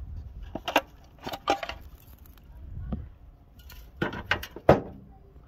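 Metal clanks and scrapes as the rocker cover is worked loose and lifted off the cylinder head of a Ford 2.3 V6: a few sharp knocks about a second in, and two louder ones near the end.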